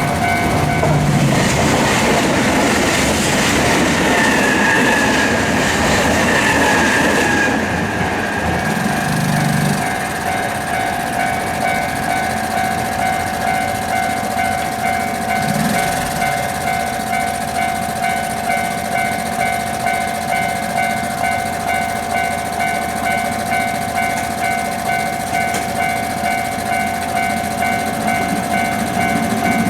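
Japanese level-crossing alarm ringing its repeated 'kan-kan' clang at about one and a half strokes a second. For roughly the first eight seconds a train runs over the crossing, a loud rush of wheel and track noise with a slowly falling whine. After that the alarm carries on alone.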